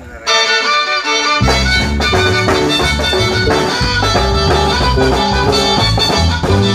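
Live band playing an instrumental song intro: a violin leads the melody, and the electric bass and the rest of the band come in about a second and a half in.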